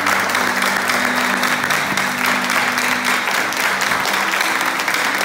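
Audience and performers applauding, a dense, steady clapping, with music playing underneath in held low notes.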